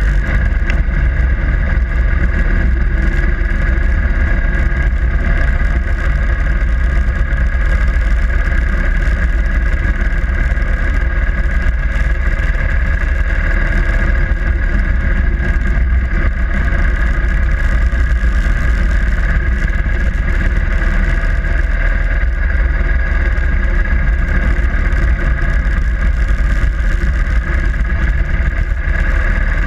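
Harley-Davidson Sportster Iron 883's air-cooled V-twin running steadily while riding, under a heavy low wind rumble on the GoPro's microphone.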